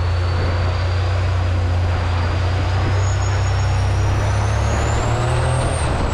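Thai longtail boat's engine running loud and steady as the boat travels at speed, a deep hum under a wash of noise. A faint high whine climbs slowly in pitch and drops again near the end.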